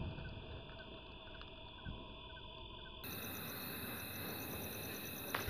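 A homemade anar fountain firework's spray hiss fades out within the first second. After it, crickets chirp in a steady, regular rhythm.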